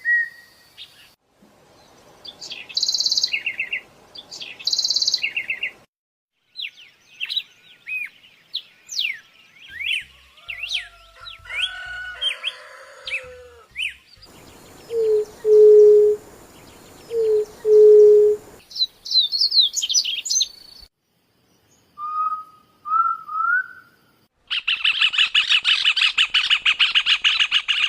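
Several different birds calling and singing in short clips joined by abrupt cuts. It runs from high chirps and whistled glides to a low steady hoot given twice in pairs about halfway through, and ends with a dense, rapid trill.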